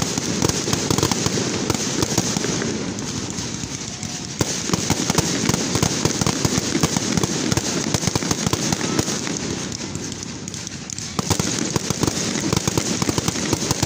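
Aerial fireworks bursting overhead: a dense, continuous crackle of many rapid pops. It eases off twice and picks up again with fresh bursts about four seconds in and about eleven seconds in.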